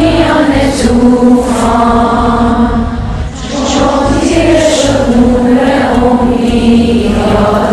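Background music: a song with long, chant-like sung notes over a steady low accompaniment. The voice breaks off briefly about three seconds in.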